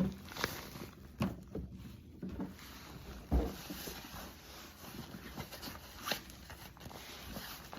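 Handling of a sauna blanket's carry bag and packaging: scattered rustles and light knocks, with one louder thump about three and a half seconds in.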